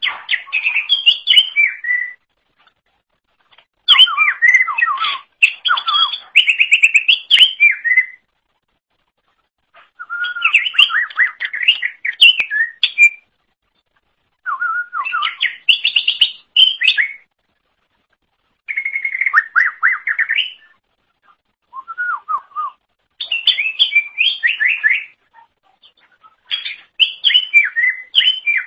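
Green leafbird (cucak ijo) singing: bursts of rapid, varied warbling and chattering notes a few seconds long, with short silent pauses between them.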